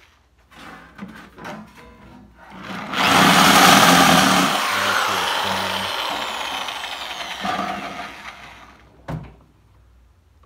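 Chicago Electric 14-gauge swivel-head electric sheet metal shear cutting through steel sheet. It starts loud about three seconds in, then runs for about six seconds with a whine that falls slowly in pitch and level. A sharp click follows near the end.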